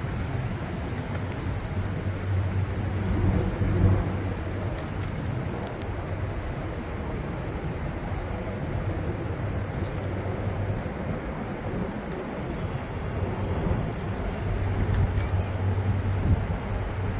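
Steady road traffic noise with a low hum, and a few faint high chirps near the end.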